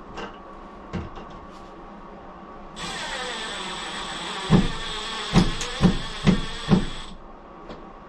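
Cordless drill driving a screw through a towel-rod bracket into a wall anchor: the motor whirs with a steady whine for about four seconds, starting about three seconds in, and five knocks come in a row in its last two seconds as the screw seats. A few small handling clicks come before it.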